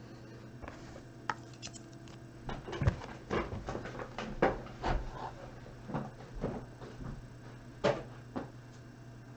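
A trading-card box and cards being handled and cleared off a table mat: a scattered series of soft knocks, taps and rubs, over a steady low hum.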